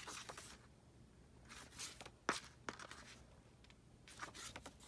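Pages of a photo book being turned by hand: faint paper rustles and swishes, with one sharper flick of paper a little over two seconds in.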